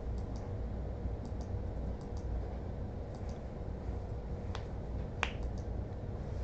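Computer mouse clicking repeatedly, mostly as quick press-and-release pairs about once a second, with two louder, sharper clicks a little after halfway, over a low steady room hum.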